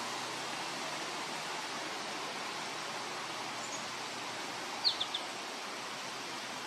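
Steady outdoor background hiss, with a small bird giving three quick, high chirps about five seconds in.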